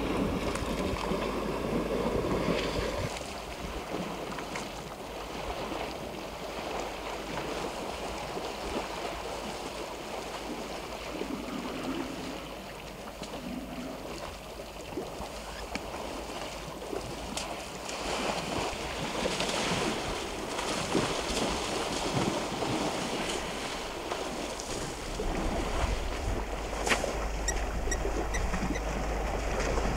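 Elephants wading and splashing in a shallow waterhole, with a run of irregular splashes, over wind noise on the microphone.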